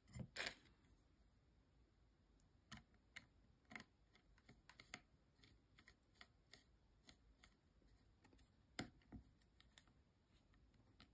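Faint, scattered clicks and ticks of a small screwdriver working the screw that holds the drag cover on the hub of a Vision Hero fly reel, with the clearest click just under nine seconds in.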